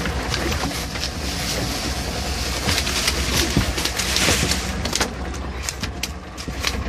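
A boat's engine idling with a steady low hum, under a hiss of wind on the microphone and scattered sharp clicks and knocks that come thicker in the second half.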